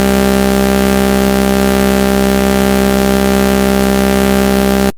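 Synthesized oscilloscope-drawing audio signal, built from combined sine, sawtooth and square waves, held as a loud, unchanging electronic drone with many overtones; it cuts off suddenly near the end.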